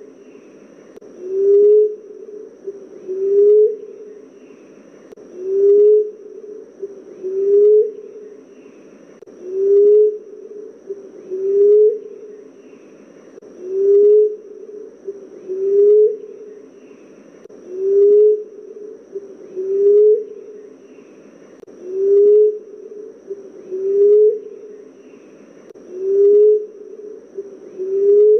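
Common emerald dove calling: a low, soft hoot, each with a slight rise at the end, repeated steadily about once every two seconds. This is the call used to lure the species in.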